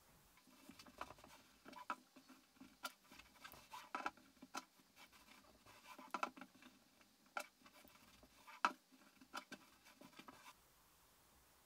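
Cotton fabric being smoothed and folded by hand on a tabletop, then pressed with a small handheld iron: irregular rustles, scrapes and light knocks, the sharpest knock about two-thirds of the way through. It stops suddenly near the end.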